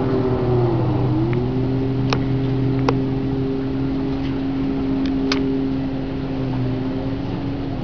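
Motorboat engine running steadily, its pitch dipping briefly about a second in, with a few sharp clicks in the middle.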